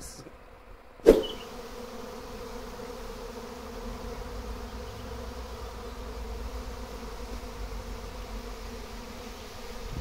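A sharp click about a second in, then the steady buzzing hum of a honeybee swarm, with thousands of bees flying in the air.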